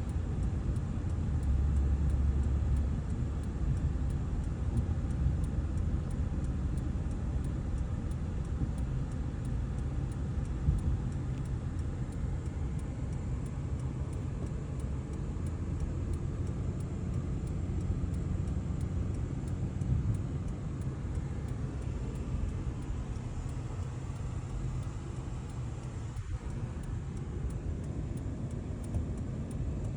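Steady low road and engine rumble heard from inside a moving truck's cabin.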